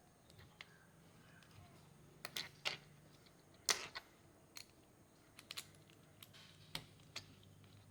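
Plastic Rubik's cube pieces clicking as they are handled and pushed into place: a dozen or so sharp, irregular clicks, some in quick pairs and triples.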